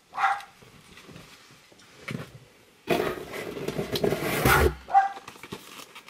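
A dog barks in the room: one short bark at the start and another about five seconds in. In between comes a louder spell of rustling and handling noise lasting about two seconds, with a dull thump near its end.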